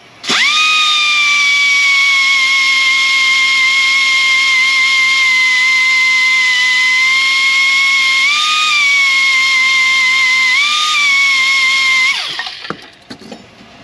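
Pneumatic die grinder with a small abrasive wheel grinding broken exhaust studs flush on a Ford FE cylinder head, a loud steady high whine. Its pitch lifts briefly twice, about eight and ten and a half seconds in, and near the end it shuts off and winds down.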